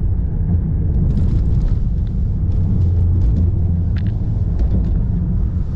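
Lexus RX driving over a rough dirt track, heard from inside the cabin: a steady low road and tyre rumble with scattered knocks and rattles. The driver puts the noise down to worn-out shocks and suspension parts and interior panels shaken loose.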